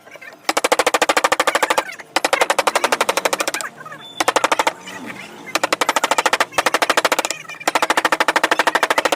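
Rapid, evenly spaced tapping of a carving chisel cutting into wood, at about fourteen strikes a second, in six bursts of half a second to a second and a half with short pauses between.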